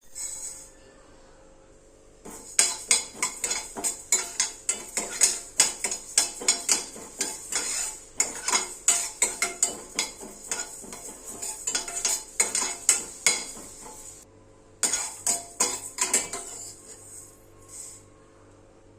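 A metal utensil clattering and scraping against a cooking pan in quick, irregular strokes. It starts about two seconds in, stops about fourteen seconds in, and resumes briefly for a couple of seconds.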